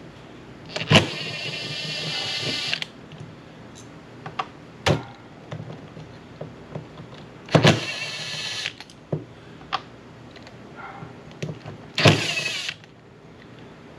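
A small handheld power tool whirring in three short runs, each starting with a sharp click, as carburetor parts are taken off. Light clicks of small parts being handled fall between the runs.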